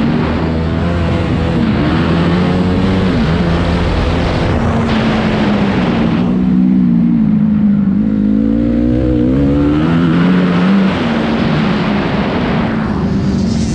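Honda CRF250R's single-cylinder four-stroke engine revving up and down, its pitch rising and falling with the throttle. About six seconds in the throttle eases off and the pitch sags, then climbs again.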